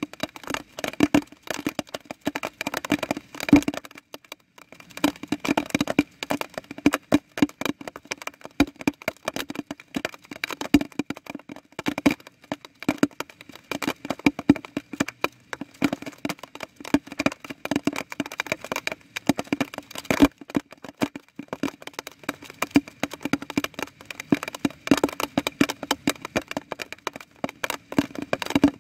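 Water drops falling close to the microphone in a dense, uneven patter of sharp ticks, like rain, easing off briefly a few seconds in.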